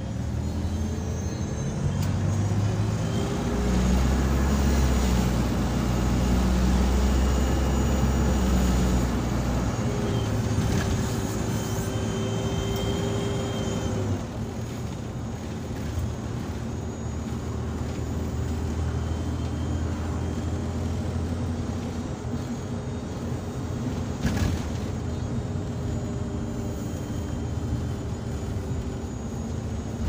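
Optare Solo SR bus heard from inside the saloon, its engine pulling with a steady hoover-like whine over a low drone. The whine holds for the first stretch, drops out about fourteen seconds in, then comes back slightly lower.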